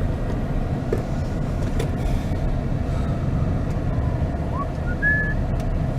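Steady low road rumble of a car driving, heard from inside the cabin, with a few faint short chirps in the second half.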